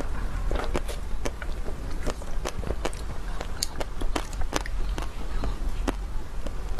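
Close-miked eating of chocolate-coated ice cream bars: the hard chocolate shell cracks and crunches in quick, irregular clicks as it is bitten and chewed. A steady low hum runs underneath.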